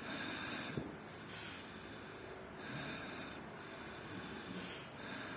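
A person snoring, each breath a hissy swell about two and a half seconds apart, three in all.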